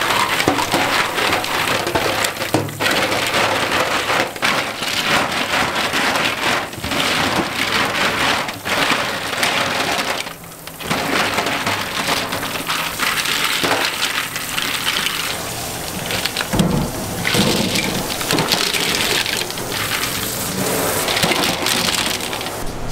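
Tap water running hard onto a heap of clams in a stainless steel sink, with shells clattering and scraping as they are scrubbed and stirred by hand. The flow drops away briefly about halfway through.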